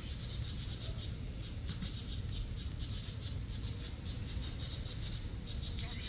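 Insects, crickets by their sound, chirping in a fast, steady pulsing trill, over a low rumble.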